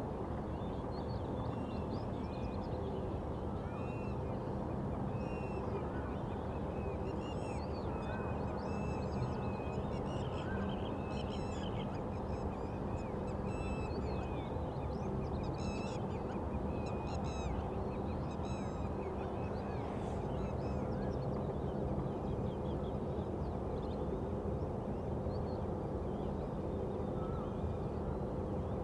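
Birds calling, with many short, repeated chirps, thickest in the middle, over a steady low hum.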